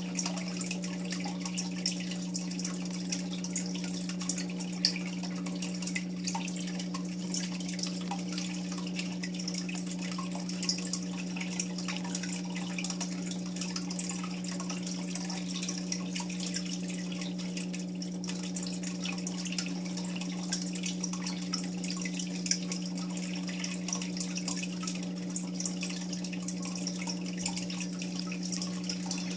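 Aquarium water trickling and bubbling with fine dripping ticks, over a steady low electrical hum from the tank's equipment.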